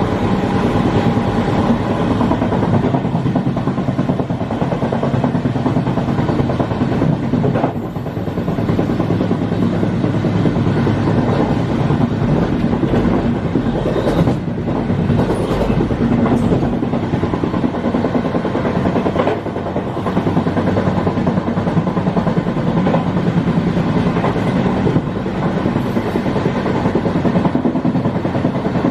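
Running noise of a Bm235 passenger coach at the tail of a moving train: steel wheels rolling on the rails in a steady rumble, with a few sharp clacks over rail joints or points partway through.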